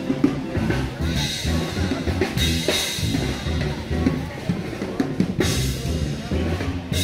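A live band playing, with the drum kit's bass drum and snare most prominent.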